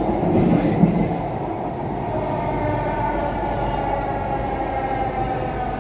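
Metro train heard from inside the car: steady running noise under an electric whine that slowly falls in pitch as the train slows on its approach to the station. A single sharp knock comes a little under a second in.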